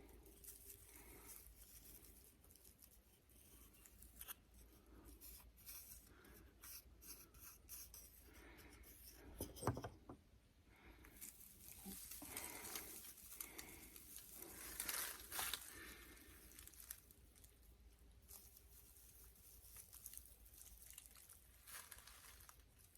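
Faint, irregular rustling, scratching and small clicks of hands working a hand-drill friction-fire set: a mullein spindle on an artist conk hearth. One sharper knock or crackle comes a little before halfway, and denser rustling follows.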